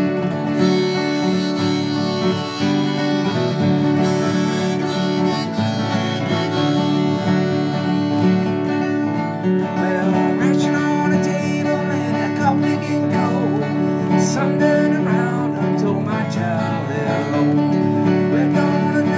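An old Washburn acoustic guitar flatpicked in a bluegrass style, with a harmonica holding long chords over it and bending notes in the second half.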